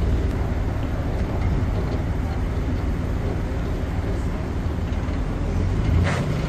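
Narrowboat diesel engine running steadily with a low rumble. A brief knock comes about six seconds in.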